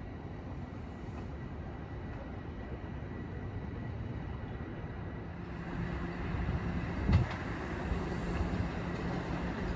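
TTC Toronto Rocket subway train running on open track: a steady rumble of wheels on rail that grows louder a little past halfway, when a steady hum joins in. A single sharp thump, the loudest sound, comes a second or so later.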